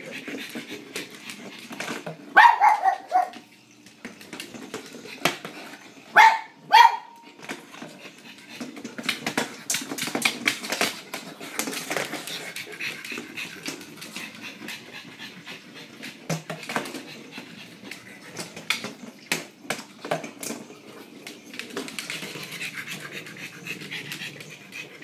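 Pug barking and panting, with one drawn-out bark about two seconds in and two short sharp barks about six seconds in. Throughout there are many quick clicks and rattles from the battery-operated Weasel Ball rolling across the hardwood floor, the noise the blind dog tracks it by.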